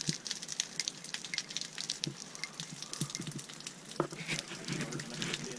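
Water falling from a crack in a cave ceiling and splashing onto rock below, a steady crackling patter of drops, with a few dull knocks.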